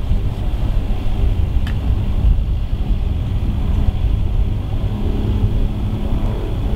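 Spitfire Mk 26B scale-replica warbird flying past at a distance: a steady propeller-engine drone over a low rumble, growing fuller about six seconds in.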